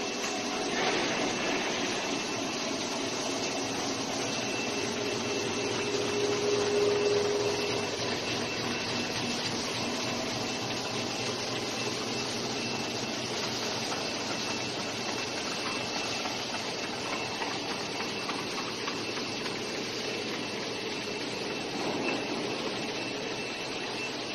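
DX1215 end face milling machine running, its milling head working at the end face of a steel beam: a steady mechanical whirr and hiss with a faint high whine throughout. A lower hum swells about six seconds in, then settles.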